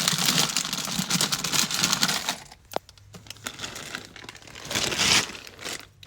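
Rustling and small clattering of belongings being handled and packed, loudest in the first two seconds and again about five seconds in, with one sharp click near three seconds.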